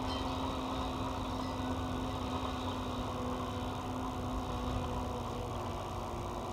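Steady drone of cable-logging machinery, an engine with a constant humming tone, as the grapple carriage runs along the skyline cable.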